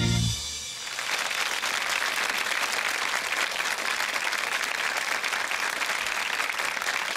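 A band's last chord dies away in the first second, then a studio audience applauds steadily.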